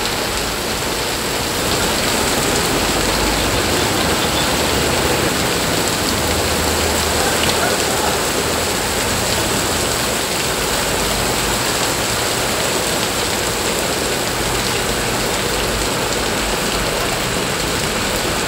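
Heavy rain falling steadily on pavement, parked cars and standing water.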